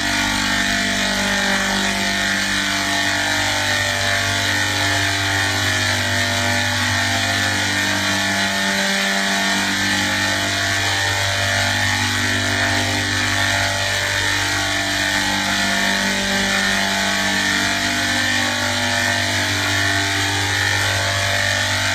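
A steady, machine-like drone: a constant hum and hiss with several held tones that slowly shift and swell.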